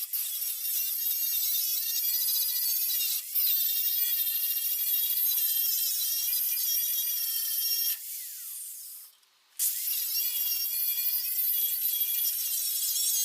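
Angle grinder taking rust off the steel of a car body, its motor whining at a pitch that wavers as the disc is pressed into the metal. It stops about eight seconds in, winds down, and starts again a couple of seconds later.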